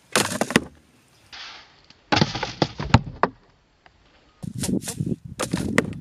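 Three quick runs of sharp clicks and taps from hands handling a cardboard box and a plastic bottle: one at the start, one about two seconds in and one in the last second and a half, with near-silent pauses between.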